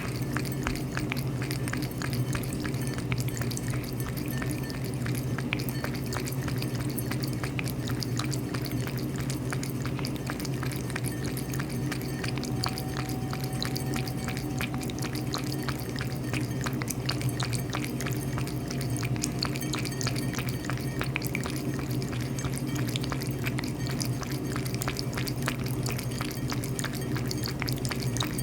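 A cat lapping water with its tongue: a continuous run of small wet clicks and drips, over a steady low hum.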